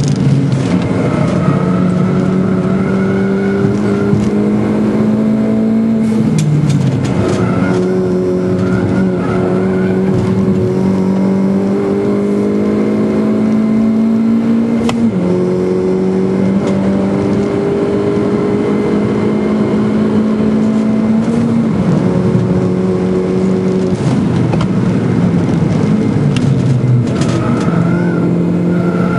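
Schäfer Mini Clubsport's engine heard from inside the cabin at full racing pace. Its pitch climbs slowly under load and drops sharply at each of several gear changes.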